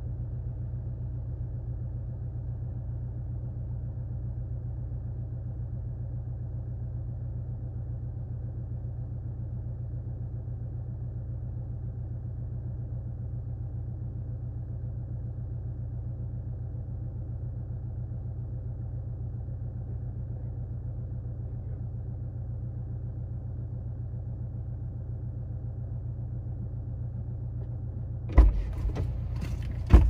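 Car engine idling steadily, a low even rumble heard from inside the parked car's cabin. Near the end a sudden loud clunk breaks in.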